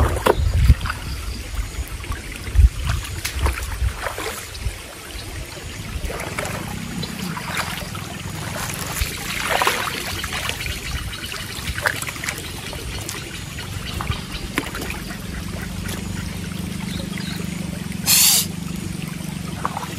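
Shallow stream water trickling and splashing around stones being stacked to dam it, with scattered knocks and splashes, heavier in the first few seconds. A faint low hum sets in partway through, and a short sharp burst comes near the end.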